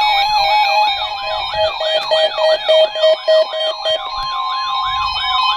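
Several Midland WR-100 weather radios sounding their alarms together for a NOAA Weather Radio warning-alarm test: overlapping siren-like sweeping tones, about three sweeps a second, over steady alert tones. A rapid beeping joins in and stops about four seconds in.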